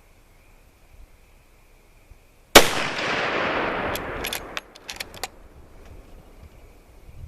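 A single shot from a Mossberg Patriot bolt-action rifle in .350 Legend, firing 150-grain ammunition. The crack is followed by a fading echo lasting about two seconds, and a few sharp clicks come about a second and a half after the shot.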